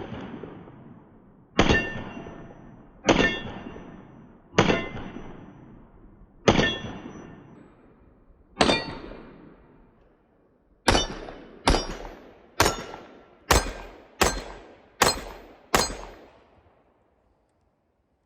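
Glock 48 9mm pistol firing twelve shots: five spaced about one and a half to two seconds apart, then seven in quicker succession about a second apart, each shot followed by a short echoing decay.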